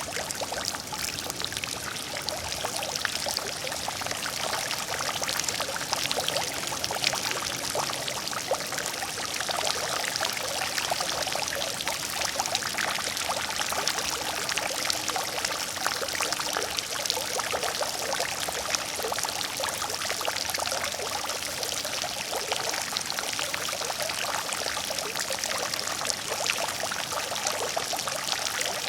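Water fountain running steadily: water pouring and splashing into a pool.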